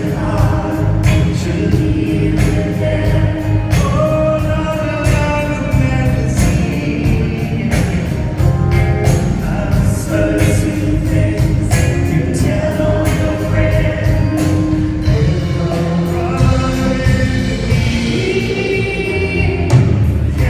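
Live band music: a man singing lead over acoustic guitar, with other voices singing along and a steady beat.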